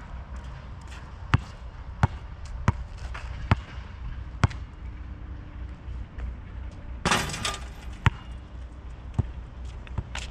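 A Molten basketball dribbled five times on an asphalt court, each bounce a sharp slap. The free throw that follows strikes the hoop about seven seconds in with a brief rattling clatter, and the ball bounces on the court once about a second later.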